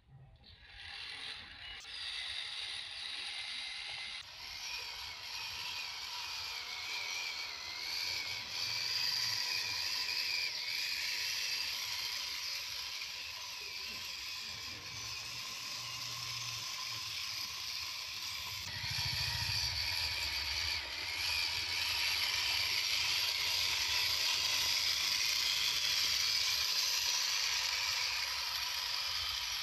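Electric motor and gear train of a homemade 1/10-scale RC crawler whining steadily as it crawls over rough ground, the pitch wavering with the throttle.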